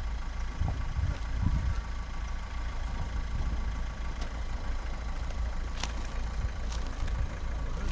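Car engine running at low speed nearby, a steady low rumble, as a car arrives at the campsite.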